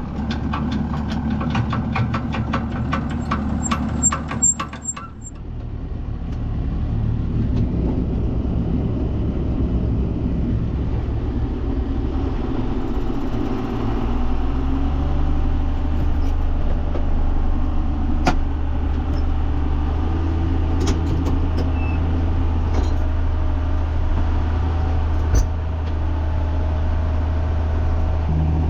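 John Deere 7510 tractor's six-cylinder diesel running steadily while pulling a round baler with its pickup lowered into the windrow. A quick regular ticking, about four a second, for the first few seconds; about halfway through the engine note rises and then holds.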